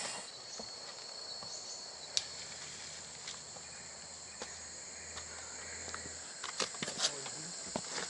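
Steady high-pitched drone of rainforest insects, with scattered footsteps and small snaps on the trail and a few sharper clicks near the end.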